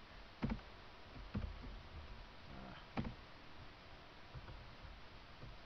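Three separate clicks of computer keyboard keys, one a little under half a second in, one about a second later and one near the three-second mark, over a low room hiss.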